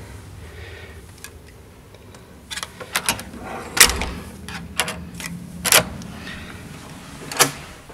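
Hotel room door's metal lever handle and latch clicking as the door is worked open: several sharp clicks and knocks starting about two and a half seconds in, the loudest near the middle.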